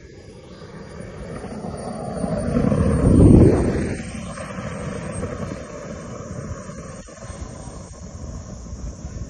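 SW140 turbine of an RC model jet passing low: a rushing jet noise swells to a loud peak a little past three seconds in, then falls away quickly and carries on lower. A thin high turbine whine sinks slowly in pitch throughout.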